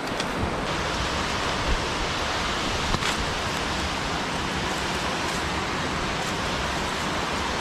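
Steady rushing of water falling at Buckhorn Falls.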